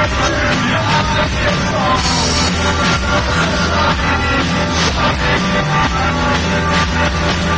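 Rock band playing loudly, drums, bass and guitars with a singer over them.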